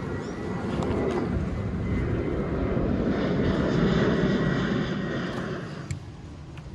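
Engine noise of something passing: a rumble that builds up, is loudest about four seconds in, and fades away near the end.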